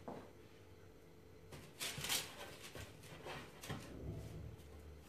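Quiet handling sounds of shaped bread dough being laid on a baking tray lined with baking paper: scattered soft rustles and light knocks, the loudest a brief rustle about two seconds in.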